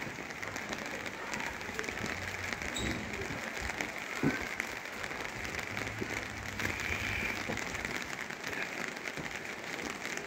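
Rain falling on the street: a steady hiss of many fine drops.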